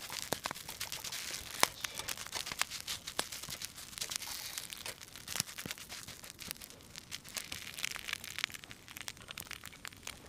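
Rice and egg sizzling in a black steel frying pan over a wood fire as it is stirred with a metal ladle, with frequent sharp clicks of the ladle on the pan and crackles from the fire.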